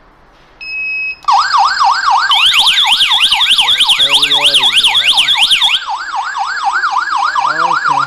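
Diamond wireless indoor alarm siren sounding after the SOS button on the alarm panel is pressed: a short steady beep, then a loud, fast warbling siren sweeping up and down about four or five times a second, with a second, higher warble layered on for a few seconds in the middle.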